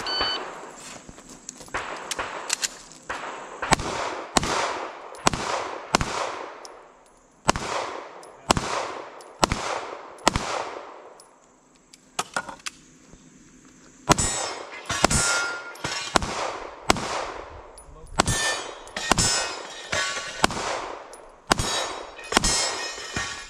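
A pistol fires rapid strings of shots about half a second apart, each echoing briefly, with steel targets clanging when hit. A pause of about two seconds shortly after the middle breaks the strings.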